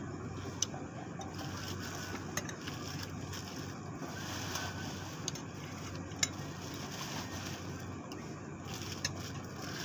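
Eating noodle soup with a spoon: spoonfuls slurped and chewed, with a few short sharp clicks, over a steady low background rumble.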